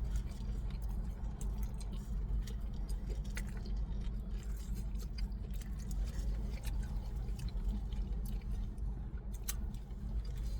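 Someone eating: chewing and scattered small clicks and rustles of food and packaging, over a steady low hum.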